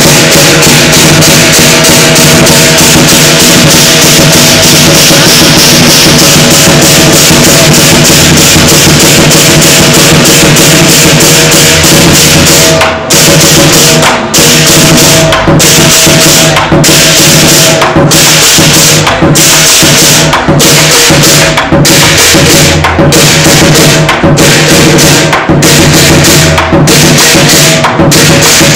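Chinese lion dance percussion: a big drum, clashing cymbals and a gong played very loudly together in a dense, driving beat. About halfway through, the playing starts to stop for an instant roughly every second and a quarter, falling into a repeating phrase.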